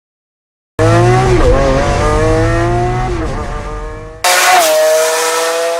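Lamborghini Aventador SV's V12 through a freshly fitted FI exhaust, running loud with its pitch dipping and recovering; it starts abruptly about a second in and cuts sharply to another loud stretch of engine sound after about four seconds.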